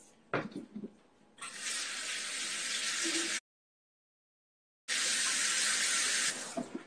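Kitchen tap running: a steady rush of water in two spells, each about two seconds long, with a silent gap between them. A few light knocks come just before the water.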